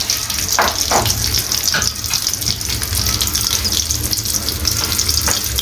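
Bagda (tiger) prawns sizzling as they shallow-fry in soybean oil in a wok: a steady hiss with a few sharp crackles of spattering oil.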